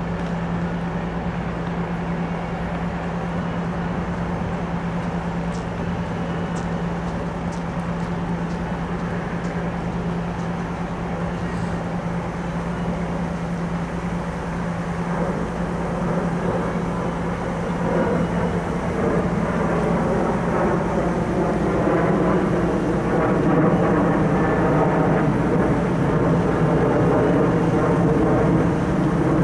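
Diesel locomotive of a stopped MARC commuter train running with a steady low hum. From about 15 to 18 seconds in, a louder engine sound builds up over the hum, its pitches rising and falling, and it stays loud to the end.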